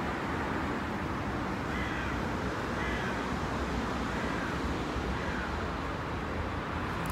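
Steady low outdoor rumble, with a bird giving several short, faint calls in the middle of the stretch.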